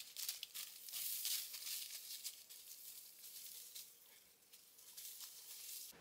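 Dry fallen leaves and dead ferns crackling and rustling under footsteps, loudest in the first couple of seconds and fainter after.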